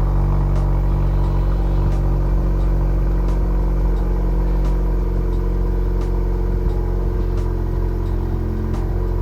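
Honda Accord 1.5T turbocharged four-cylinder running at a steady fast idle just after a cold start, through an exhaust with the muffler and resonator deleted.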